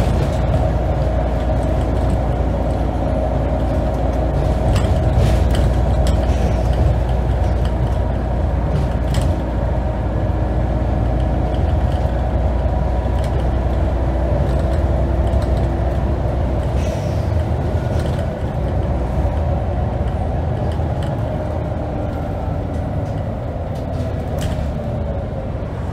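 Scania N94UD double-decker bus's diesel engine running steadily under way, heard from inside on the upper deck, with interior rattles and clicks. The low rumble eases about two-thirds of the way through, and the engine note falls away near the end as the bus slows.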